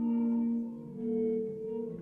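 Slow music with long held notes, the melody moving to a new note every half second to a second.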